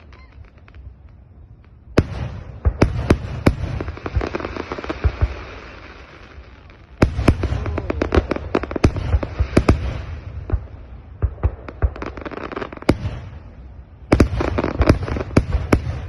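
Aerial fireworks bursting in three volleys, each a run of sharp bangs thick with crackle that dies away before the next. The volleys start about two seconds in, about seven seconds in and about fourteen seconds in.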